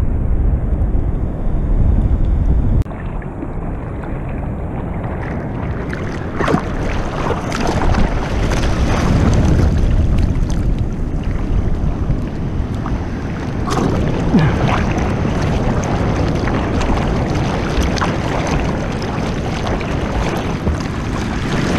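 Seawater splashing and sloshing around a head-mounted action camera at water level, with wind rumbling on its microphone. A heavy low wind rumble at first gives way, from about six seconds in, to busier splashing with many short splashes.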